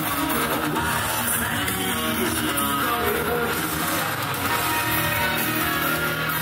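Recorded music playing continuously at a steady level, with strummed guitar prominent.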